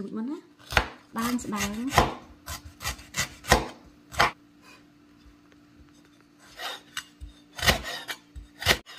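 Cleaver chopping aromatics on a wooden cutting board: sharp knocks of the blade on the board, a quick run of them in the first four seconds, a pause of about two seconds, then a few more near the end.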